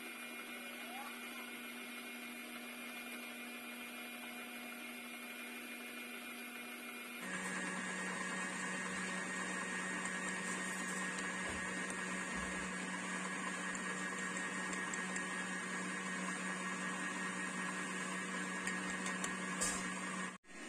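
Stand mixer motor whirring steadily while its whisk beats egg whites with sugar into meringue. About seven seconds in, the hum drops in pitch and gets louder.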